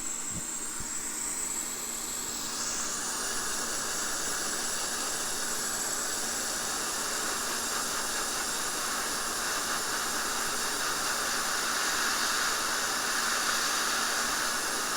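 Hot-air rework station blowing a steady hiss of air at about 400 °C onto a PS5 circuit board to heat a DC-DC converter chip for desoldering; it grows a little fuller and louder after a couple of seconds.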